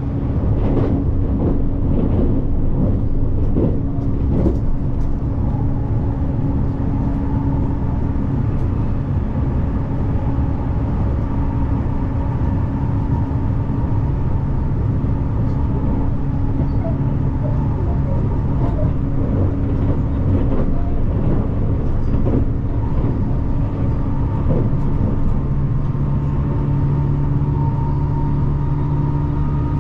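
Electric express train running, heard as a steady rumble with an even hum. A few faint clicks come in the first few seconds, and a low hum grows stronger near the end.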